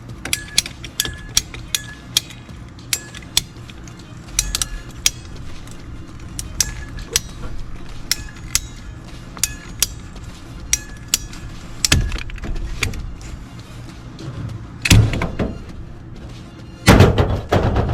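Clicking of a ratcheting PVC pipe cutter working through the plastic condensate drain pipe, many short sharp clicks over a steady low hum, with three louder clunks in the last few seconds. Music plays underneath.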